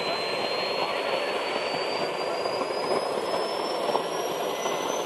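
Tornado jet in flight overhead: a steady jet rushing with a thin high whine that climbs slowly in pitch.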